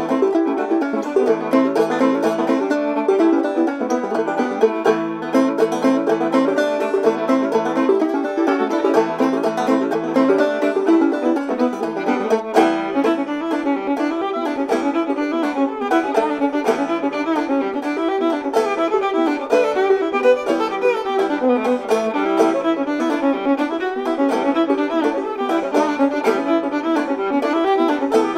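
Clawhammer banjo and fiddle playing an old-time tune together, the notes running on steadily without a break.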